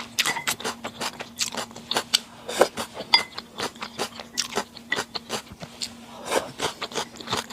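Close-miked eating sounds: chewing and biting with many quick, irregular crunches and wet clicks, over a faint steady hum.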